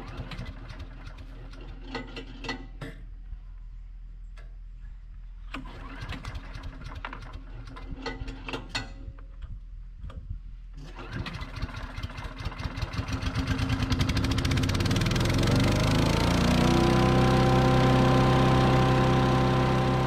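Small gas engine on a wood chipper being pull-started: several short rattling pulls, then it catches about eleven seconds in, rises in speed and settles into a steady run.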